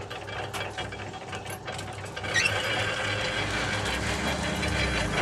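Sugarcane juice crushing machine running, its rollers and gears rattling over a low hum. About two seconds in it grows louder, with a short rising squeak, as cane is fed through the rollers.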